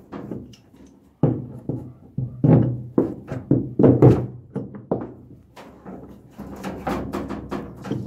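Steel pliers knocking, clicking and scraping against the plastic spin-dryer tub of a twin-tub washer as its rubber shaft seal, stuck down with sealant, is pried loose. The knocks come irregularly, several a second at times.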